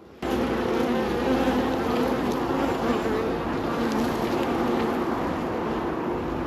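Many honey bees buzzing loudly and densely close to the microphone, starting suddenly just after the start. These are bees from an opened hive, flying at the camera.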